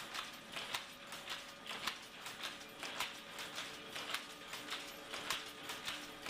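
Old cast-iron textile machinery running with a steady mechanical clatter of clicks and knocks, about three a second.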